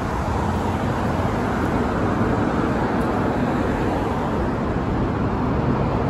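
Steady noise of freeway traffic.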